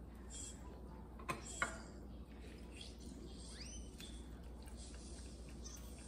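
Quiet mealtime sounds: two faint clicks about a second and a half in as food is handled at the table, and a short rising high squeak near the middle, over a low steady hum.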